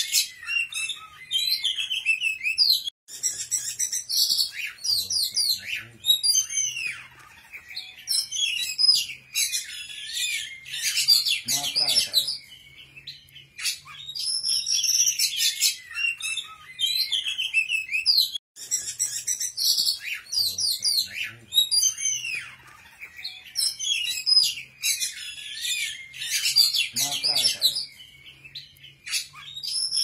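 Songbird singing a rapid, varied run of chirps, whistles and trills, high-pitched and nearly continuous. It is a looped masteran recording for training cage birds, and the same phrase sequence repeats about every 15 seconds.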